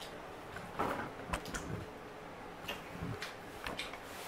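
Scattered soft clicks, taps and short rustles of someone eating pizza and handling its cardboard pizza box, a few in quick succession about a second in and a few more later.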